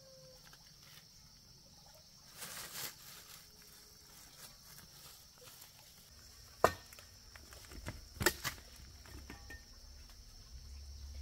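A steady high-pitched insect chorus, with a brief rustle about two and a half seconds in, then a single sharp knock a little past halfway and two or three more knocks about a second and a half later.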